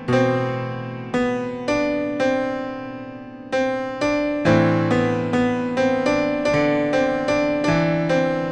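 Background piano music: notes and chords struck and dying away, coming a little quicker in the second half.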